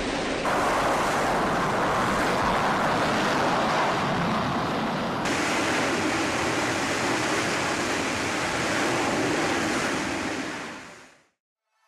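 F/A-18E/F Super Hornet twin turbofan engines at full power with afterburner during carrier catapult launches: steady, loud jet noise. The noise shifts abruptly about half a second in and again about five seconds in, then fades out near the end.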